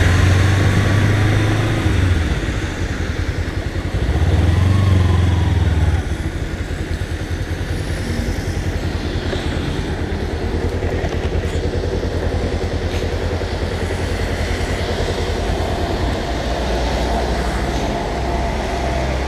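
Kawasaki Ninja 250R parallel-twin engine running as the bike rolls slowly, pulling briefly about four seconds in. It settles to a steady idle from about six seconds on.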